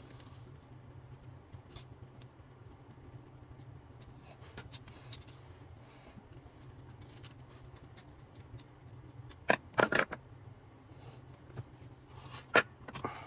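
Metal tools and parts clinking and being handled with faint scattered clicks, then a quick run of three sharp metallic knocks about two thirds of the way through and another sharp knock near the end.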